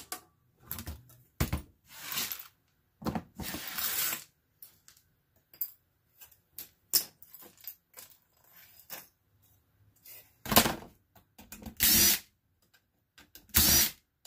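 Circuit boards and small metal parts clattering as they are handled on a workbench. Near the end comes a DeWalt cordless drill-driver running in several short bursts, backing screws out of a CPU cooling fan on a computer motherboard.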